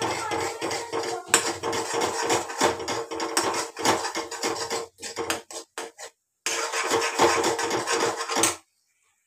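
Steel spatula scraping and clinking against a kadhai while thick masala is stirred: a quick, busy run of scrapes and knocks that thins to a few separate strikes a little past halfway, picks up again, then cuts off suddenly near the end.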